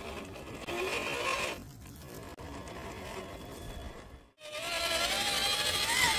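Traxxas TRX-4 1/10-scale RC crawler's electric motor and gears whining, the pitch rising and falling with the throttle. The sound drops out abruptly about four seconds in, then comes back louder.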